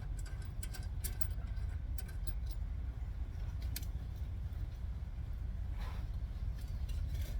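Light, irregular metallic clicks of a washer and lock nut being fitted onto a steering stabilizer shock's stud, over a steady low rumble.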